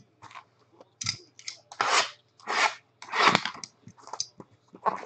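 Trading-card pack wrappers and packaging being handled and torn open: a series of short crinkling, crunching rustles, about half a dozen in a row.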